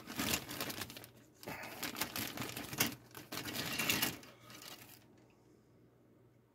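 Thin plastic bag crinkling and rustling as it is handled, with small clicks, for about four seconds before it dies away.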